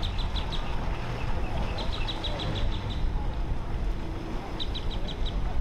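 Wind rumbling on the microphone over the low hum of a boat's twin outboards approaching at slow speed. A bird chirps in two quick runs of short high notes, about two seconds in and again near the end.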